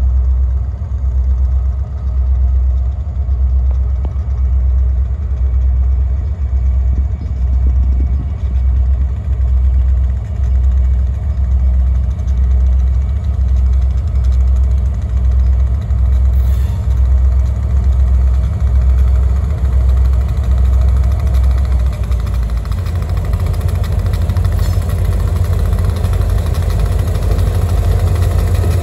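Diesel locomotives of an approaching Eastern Idaho Railroad train: a deep, pulsing engine rumble that turns steadier and fuller in the last several seconds as the lead unit draws near.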